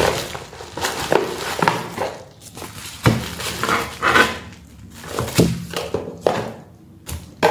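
Bubble wrap crinkling and rustling in irregular bursts as a boxed power inverter is unwrapped and lifted out, with several dull thunks of the unit and the cardboard box being handled and set down.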